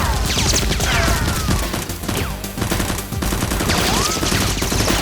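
Rapid gunfire sound effects in a continuous volley, laced with short whistles that fall sharply in pitch, several each second.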